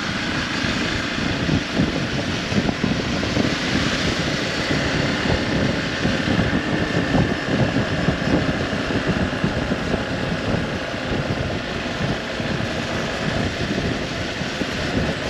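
Hero Xpulse 200 4V's single-cylinder engine running steadily under way, with wind rushing over the microphone.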